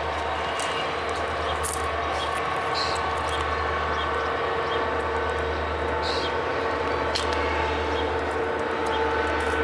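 Freight train of tank cars rolling steadily across a stone arch bridge: a steady rumble with faint steady ringing tones. A few short high chirps sound over it.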